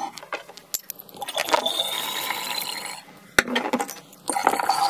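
Grape juice poured from a glass bottle into a large glass jar: a steady pouring stream with a thin whistle that rises in pitch as the jar fills. A sharp glass clink about three and a half seconds in, then pouring again near the end.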